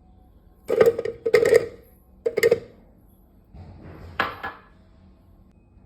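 Kitchen utensils clattering: three sharp, ringing knocks in the first two and a half seconds, then a longer rattle about four seconds in.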